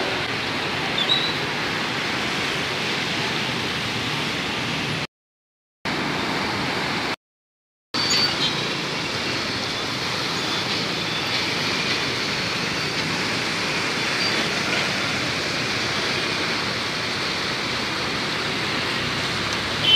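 Swollen, muddy river in flood rushing past in a steady wash of water noise. The sound cuts out completely twice for under a second, about five and seven seconds in.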